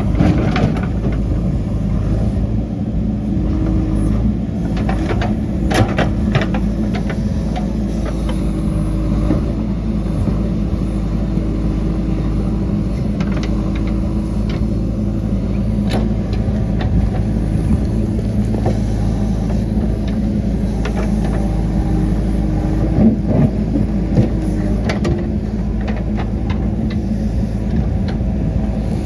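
JCB 3DX backhoe loader's diesel engine running steadily under work, with a few sharp knocks now and then.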